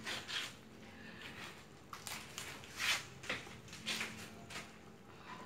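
Thick coconut-milk rendang gravy simmering in a wok, giving a few soft, irregular bubbling pops.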